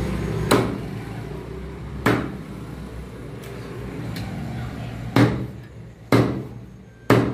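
Heavy chopping knife striking chicken pieces on a thick wooden chopping block: five sharp chops about one to one and a half seconds apart, with a couple of lighter taps between, over steady background noise that fades in the second half.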